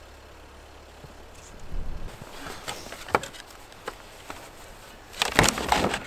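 Footsteps crunching and scuffing through deep, soft snow, irregular and loudest in a dense burst near the end, over a low steady hum at the start.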